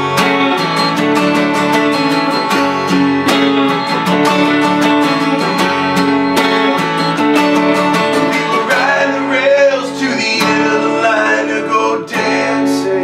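Acoustic guitar strumming steadily with a Telecaster-style electric guitar playing along in an instrumental passage. About two-thirds of the way through, a wavering, bending melody line comes in over the strumming for a few seconds.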